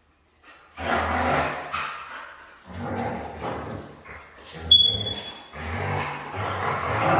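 Adult Siberian husky growling in rough play while wrestling a puppy, in three long bouts. There is a short, high, thin squeal about two-thirds of the way through.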